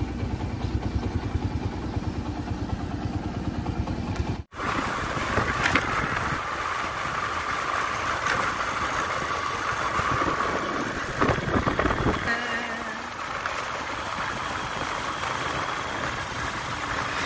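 Motorcycle engine running while being ridden, with a pulsing low note. About four and a half seconds in there is a sudden cut, and after it comes riding noise with wind rushing over the microphone and a fainter engine.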